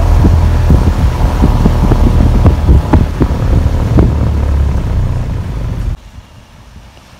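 Loud low rumble and crackle of wind buffeting a phone's microphone, cutting off abruptly about six seconds in.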